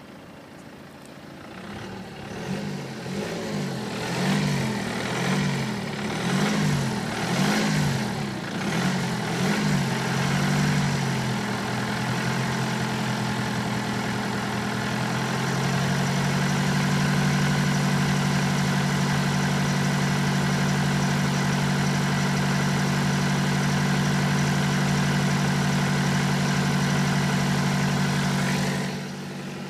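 BMW 118d's four-cylinder N47 diesel engine, blipped up and down several times, then held running steadily; the level drops near the end. The owner suspects the model's known defect behind it: timing-chain rattle or an abnormal metallic noise.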